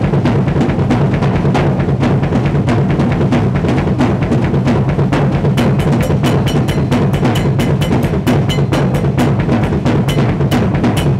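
Acoustic drum kit played fast in a metal style: a dense, unbroken stream of drum and cymbal hits over a heavy low end. The strokes grow sharper and more evenly spaced from about halfway.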